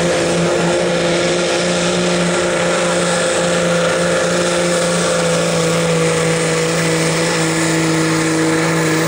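Diesel engine of a Dodge pickup held wide open under heavy load as it drags a truck-pull sled. It runs at a steady high pitch, sagging only slightly.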